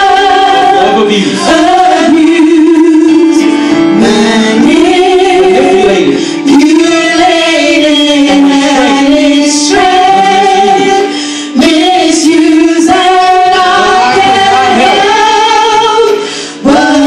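A group of women singing a gospel song into handheld microphones, amplified through the church speakers, with long held notes and vibrato. The singing breaks off briefly three times between phrases.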